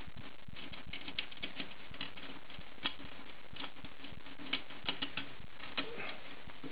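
Scattered light clicks and taps of a Stihl 026 chainsaw's steel chain brake band being handled and worked into place on the saw's housing, over a steady background hiss.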